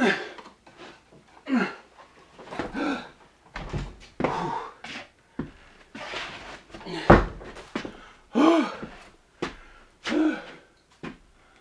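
Heavy thunks and knocks, loudest about three and a half, five and a half and seven seconds in, with a man's grunts and breaths of effort between them, as a stair counterbalance pulley is taken down.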